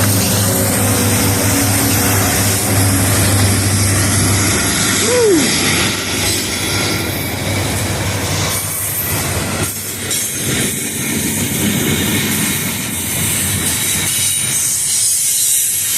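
Diesel-hauled mixed freight train rolling past at close range. A low engine drone ends about four seconds in, and the steady rumble and clatter of freight cars on the rails carries on, with a brief falling squeal about five seconds in.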